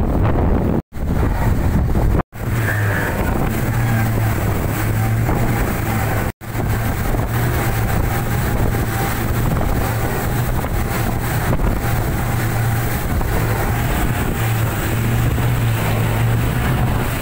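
Triple outboard motors on a Fountain center-console speedboat running at speed, a steady low engine drone under the rush of wind and water. The sound drops out abruptly three times in the first several seconds.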